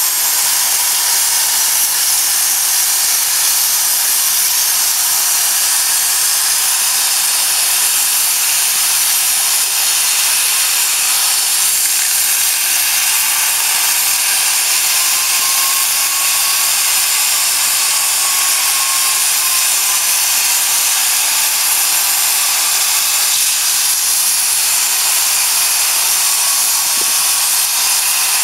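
Oxy-fuel cutting torch of a CNC oxygen cutting machine, its gas jet giving a loud, steady hiss with no breaks.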